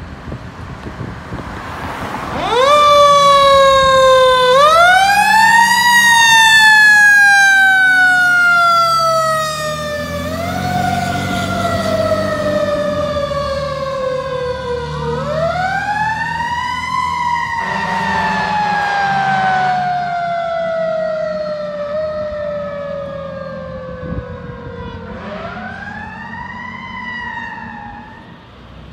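Fire apparatus mechanical siren, wound up in quick climbs that each fall away slowly in pitch, four or five times over. Diesel engines rumble underneath, a steady horn blast sounds partway through, and the sound fades as the trucks drive away.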